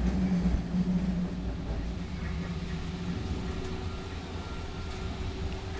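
Alstom Citadis Spirit light rail train running at speed, heard from inside the car: a steady rumble of wheels on track with a low hum that fades about three seconds in, and a faint whine in the second half.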